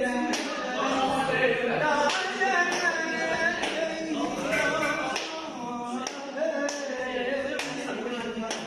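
A man singing an Arabic song unaccompanied in long, wavering sung notes without clear words, with sharp taps or hand claps marking the beat.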